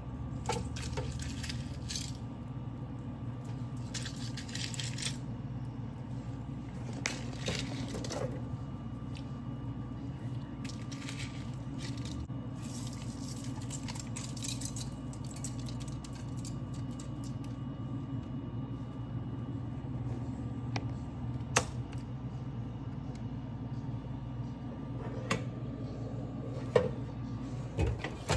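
Kitchen utensils clinking, knocking and scraping against a bowl and plate while frosting is spread on a cake, over a steady low hum. The scrapes come in clusters in the first half, and there are a few sharp knocks later, the loudest near the end.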